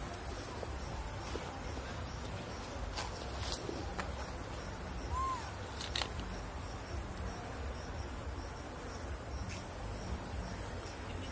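Steady outdoor insect chorus with faint, evenly repeating chirps. A few faint clicks and one brief high chirp come in the middle.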